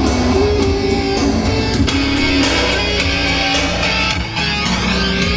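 Guitar-led music playing loud through an outdoor PA loudspeaker, with a steady beat.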